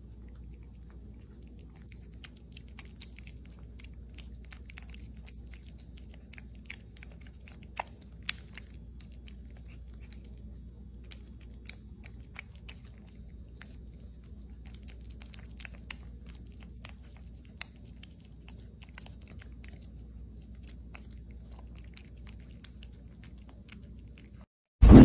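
A cat licking puree from a squeezed treat tube: many small, irregular tongue clicks and smacks over a steady low hum.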